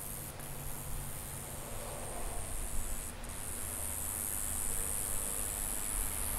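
Insect chorus outdoors: a steady high-pitched hiss that dips briefly twice, with a faint low rumble underneath.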